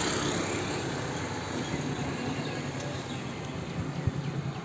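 Motor scooter engine passing and fading away, over steady street noise with no sharp events.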